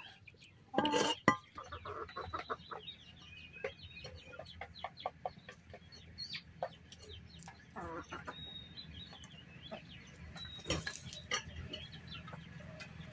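Chickens clucking, with many short clucks and calls throughout and a louder squawk about a second in.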